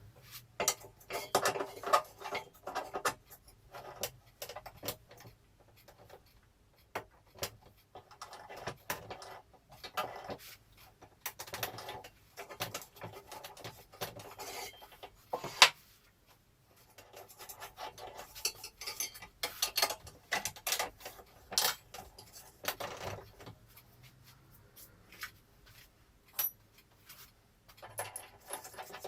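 Metal parts of a bench drill press being handled and fitted together: irregular clinks, rattles and scrapes, with one sharp clink about halfway through.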